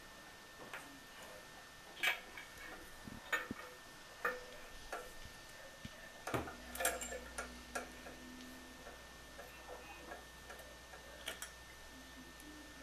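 Irregular metal clicks and knocks from channel lock pliers working a bathroom sink's pop-up drain flange loose and the pop-up assembly being pulled out through the drain hole. A low hum comes in about halfway through.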